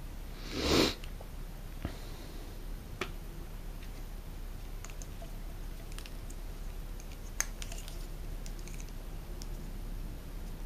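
Small plastic clicks and taps as a feeding syringe and extension tube are handled, scattered irregularly, after one brief loud burst of handling noise about a second in.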